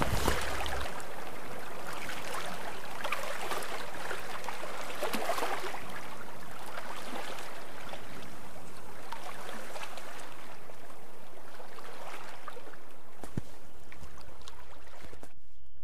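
Water splashing and gurgling along a sailboat's hull under way, with low wind rumble on the microphone in the first second and again near the end. The sound cuts off just before the end.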